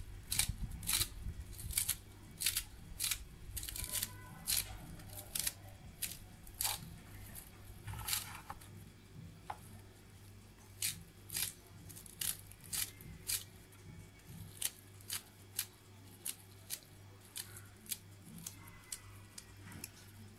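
Scissors snipping a bunch of fresh parsley and coriander, with sharp, short snips coming irregularly about one or two a second. A steady low hum runs underneath.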